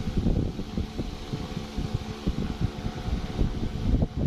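Handling noise close to a phone's microphone: irregular low thumps and rubbing as a hand moves over skin and fabric near the phone.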